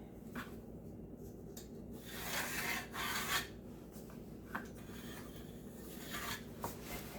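Pencil scraping as it marks a line on wood, in a few short strokes with light knocks of tools against the wood.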